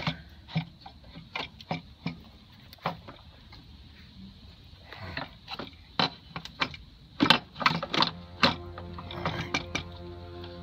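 Irregular clicks and knocks of engine intake parts being handled and fitted by hand at a car's throttle body. A steady pitched hum joins in near the end.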